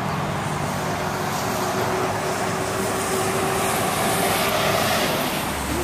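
Steady rushing noise of road traffic, with a faint held tone through the middle.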